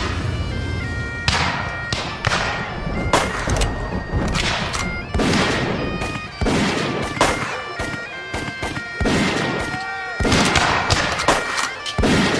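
Black-powder musket fire: a ragged string of single shots, about one a second at irregular spacing, each with a short echoing tail. Steady sustained musical tones run underneath.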